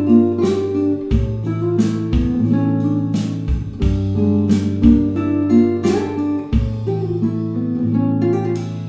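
Background music led by plucked acoustic guitar, with a bass line and a steady beat.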